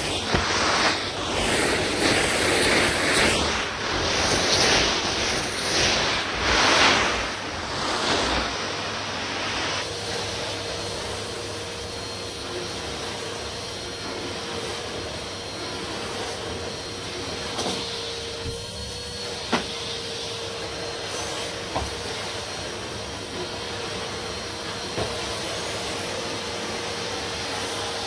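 Numatic Hetty cylinder vacuum cleaner running over powder-strewn carpet. The suction noise rises and falls for the first eight seconds or so, then settles quieter and steadier with a faint steady whine, and a few small knocks come later on.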